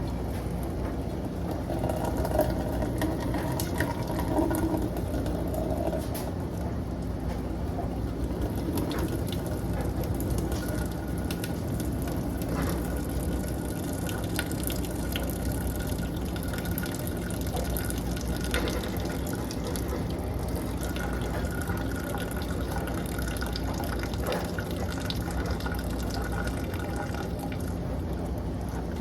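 Water pouring and splashing steadily into a kitchen sink as a pot of boiled pasta is drained.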